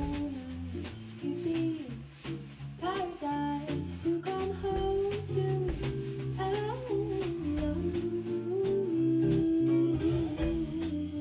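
Small jazz band playing: a woman's voice sings long, bending held notes over walking electric bass and acoustic guitar, with a drum kit keeping even time.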